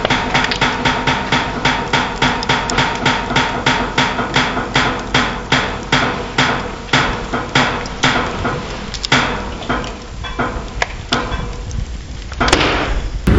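A rapid, even series of hammer-like strikes, about three or four a second, with a faint ringing tone under them; after about eight seconds they slow and thin out to a few scattered strikes.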